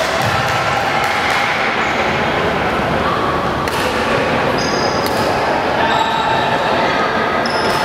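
Badminton hall ambience: a steady, reverberant din of play and voices, broken by a few sharp knocks of rackets or shuttlecocks and short high squeaks of shoes on the wooden court near the end.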